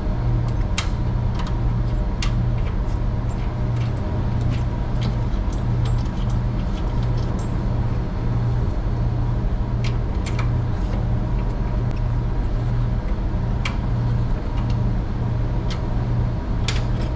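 Steady low drone of running machinery, with a pulsing hum, typical of a ship's engine-room generators. Over it, scattered light clicks and taps of metal parts being handled at the air circuit breaker's racking mechanism.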